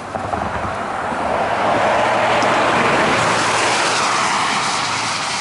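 A motor vehicle passing on the road: tyre and engine noise swells over about two seconds, holds, then fades away.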